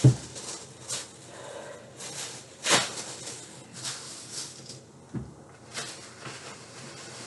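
Thin plastic grocery bags rustling and crinkling as they are crumpled and handled, in a string of short bursts with a few soft knocks.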